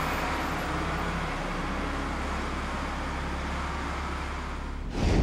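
Container lorry moving slowly: a steady diesel engine and tyre rumble. Near the end a sudden, louder low boom cuts in.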